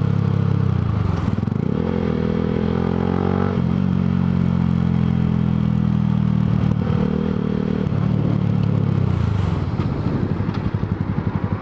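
Yamaha motorcycle's engine running under way, heard from the rider's helmet camera, its note shifting a few times with throttle and gears. Near the end it drops to an even, pulsing idle as the bike slows to a stop.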